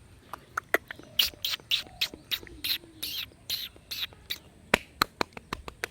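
Kinder egg wrapper being unwrapped by hand: a run of sharp clicks, then a quick series of crinkling crackles, then more scattered clicks.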